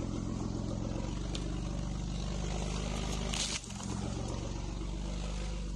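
2008 Mitsubishi Endeavor's 3.8-litre V6 running steadily at low speed, with tyres rolling over a leaf-covered dirt trail. A brief hiss a little past halfway.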